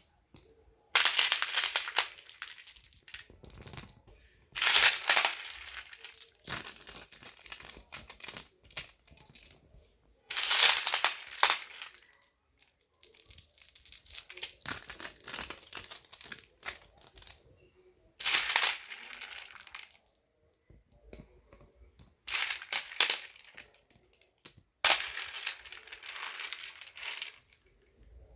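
Marbles rattling and clattering into a silicone poppet fidget toy, in repeated bursts of a second or two with quieter scattered clicks between.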